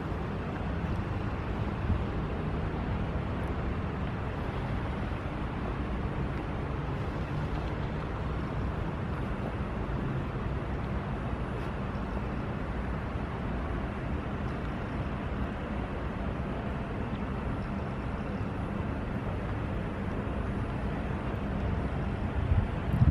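Pesa Swing low-floor tram standing at a stop, its onboard equipment giving a steady low hum.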